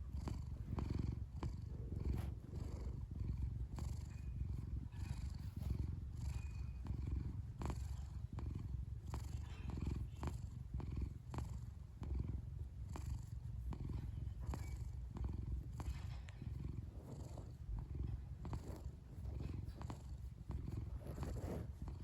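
Domestic cat purring steadily as it is petted: a low, even rumble that pulses in a regular rhythm, with faint light ticks over it.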